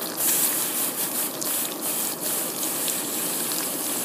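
Water pouring steadily from a jug onto heated steel rebar on an anvil, splashing with a steady hiss. This is a quench, meant to make the steel brittle so the bar can be snapped in two instead of cut.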